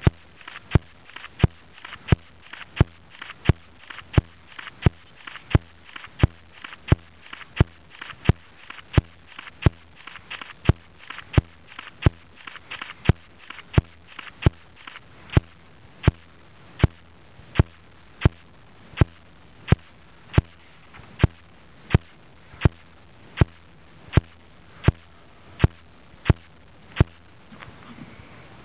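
A steady train of sharp clicks, about three every two seconds and slowing slightly near the end, over a faint hiss.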